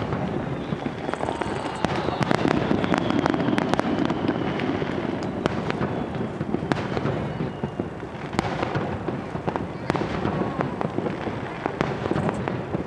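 Rapid-fire starmine fireworks: a dense, unbroken string of shell bursts and crackling reports over a continuous rumble, with a few faint whistles.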